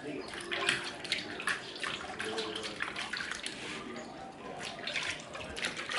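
Wet sloshing and squelching in irregular strokes as a raw whole chicken is rubbed and turned by hand in a metal bowl of liquid marinade.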